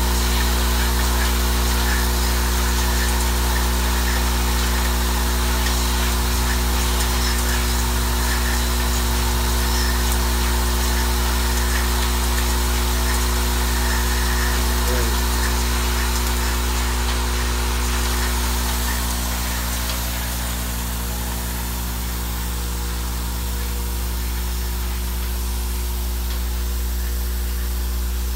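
Vibratory bowl feeder running: a steady, deep electrical hum with the small tubes rattling in the bowl and along the feed track. It gets slightly quieter about two-thirds of the way through.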